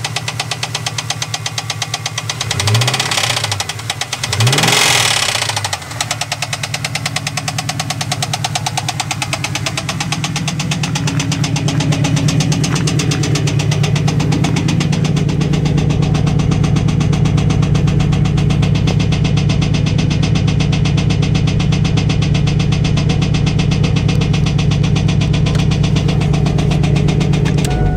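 LS1 5.7-litre V8 of a 1998 Pontiac Trans Am running with a steady, rapid knock, revved briefly twice a few seconds in, then held louder and steady from about ten seconds in. The owner takes the knock for most likely a rod bearing, though he is not sure.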